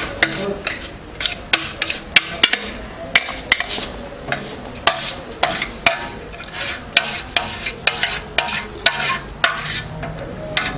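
Metal spatula scraping and clinking against a steel pan as thick peanut-and-jaggery chikki mixture is pushed out onto a steel tray: irregular scrapes and clicks several times a second.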